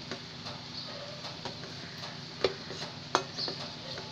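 Wooden spatula stirring and scraping ground beef in a stainless steel pot, with light scrapes throughout and two louder knocks of the spatula against the pot about two and a half and three seconds in, over a low steady hum.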